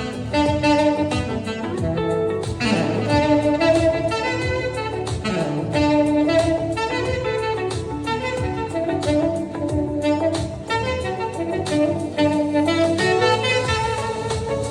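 Saxophone playing a smooth, jazzy melody over backing music with a steady beat.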